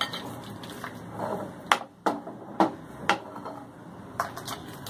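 A steel ladle knocking and clinking against the pan and serving bowl about five times as soup is ladled out, with soft splashes of liquid between the knocks.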